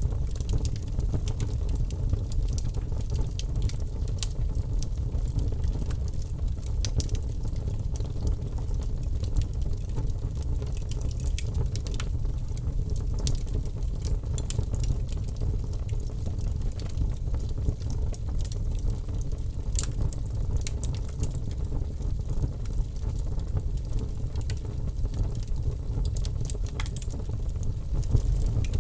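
Wood fire crackling, with frequent small sharp pops over a steady low rumble.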